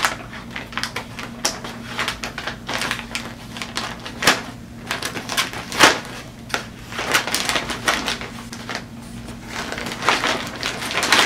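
Scissors and hands working open a plastic poly mailer bag: irregular snips with crinkling and rustling of the plastic, the sharpest clicks about four and six seconds in.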